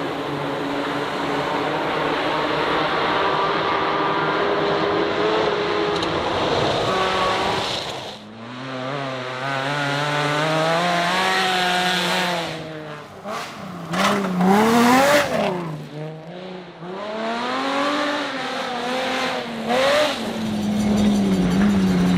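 Rally car engines at full throttle, their pitch climbing and dropping sharply as they rev through gear changes, in several short clips cut one after another.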